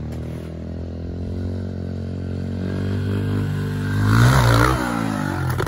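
A small dirt bike's engine accelerating, its pitch climbing as it comes closer and loudest about four seconds in as it passes, on the run-up to a jump ramp.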